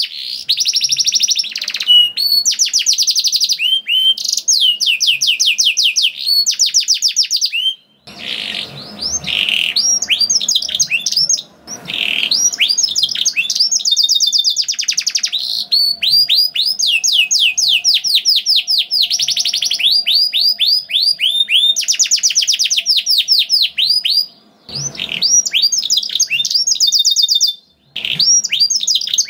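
Domestic canary singing a long, vigorous song of rapid rolling trills: fast runs of repeated downward-sweeping notes, one roll running straight into the next, with a few short breaks.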